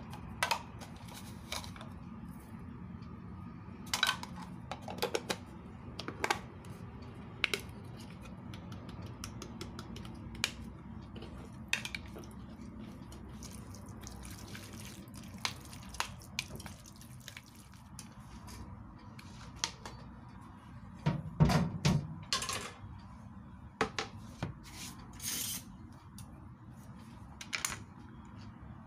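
Chopsticks clicking and knocking against a metal mixing bowl as sliced raw chicken is stirred in a marinade, in scattered strokes with a busier run of knocks about two-thirds through. A short splash of liquid is poured in just after.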